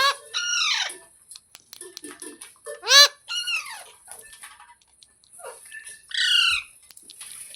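Parrot squawking: short harsh calls in three bursts about three seconds apart, the first two bursts each a pair of calls.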